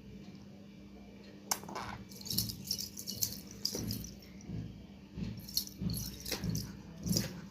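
Light rattling and jingling in an irregular run of short clicks, starting with two sharp clicks about a second and a half in.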